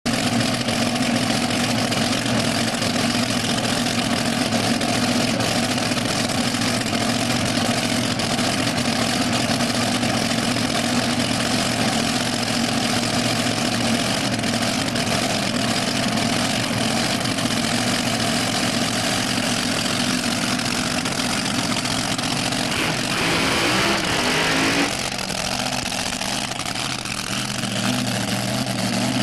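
Supercharged dragster engine running at a steady idle. Near the end a short rush of noise breaks in, and then the engine sound drops a little.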